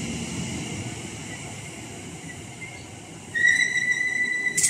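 Electric multiple-unit passenger train running past the platform, its wheels rumbling on the rails and slowly fading. About three seconds in, a loud steady high-pitched squeal starts and holds, and near the end a short loud rush of noise cuts in.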